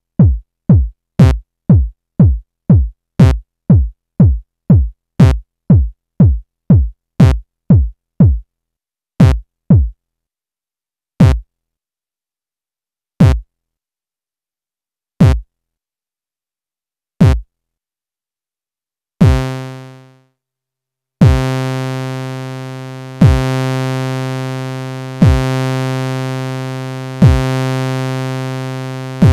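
Korg iMS-20 synthesizer app playing short kick-drum-like thumps with falling pitch, about two a second, then thinning to one every two seconds. About two-thirds through it changes to a held, buzzy low tone, re-struck every two seconds and fading between strikes, as the patch is shaped toward an explosion sound.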